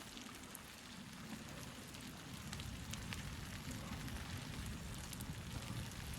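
Faint, scattered crackles of a wood stove fire over a steady low rumble.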